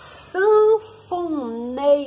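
A voice sings a few drawn-out notes, stepping and gliding down in pitch, after a short hiss at the start.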